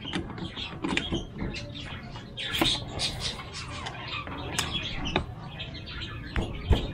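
Metal clicks and scrapes of a socket and breaker bar working a tight 19 mm lug nut on an e-bike wheel, with short high squeaks among them.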